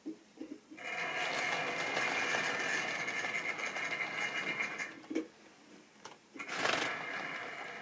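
Model railway train running on the track: the small electric motor whirs steadily with the wheels rolling on the rails. It starts about a second in, drops away for about a second and a half, then starts up again loudly near the end.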